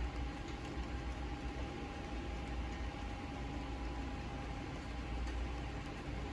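Steady rain hiss with faint scattered drop ticks, under a steady low mechanical hum.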